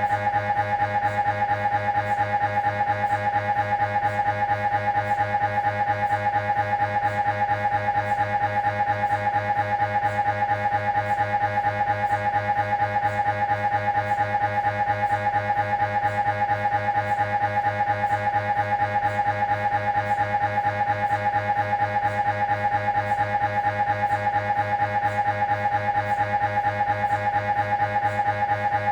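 Siemens Magnetom Avanto Fit 1.5 T MRI scanner running a spine imaging sequence: its gradient coils give a steady, rapidly pulsing tone.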